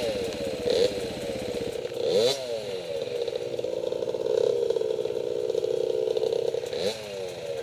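Off-road motorcycle engines idling, with short throttle blips about two seconds in and again near the end.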